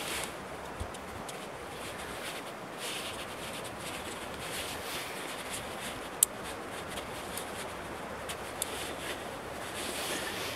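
Green wooden sticks of a hand-made clamp, bound with jute twine, rubbing and clicking against each other as they are worked by hand, with a sharp click about six seconds in. A steady rush of wind on the microphone lies underneath.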